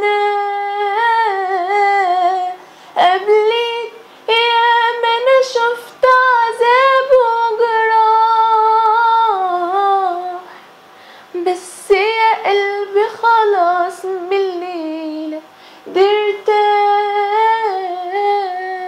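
A woman singing alone, without accompaniment, in wordless hummed or vowel phrases. She holds long notes and decorates them with turns, breaking for breath between phrases.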